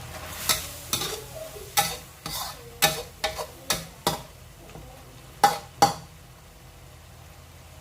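A metal spatula knocking and scraping against a frying pan while stir-frying, about a dozen sharp clanks over five seconds, after which the stirring stops.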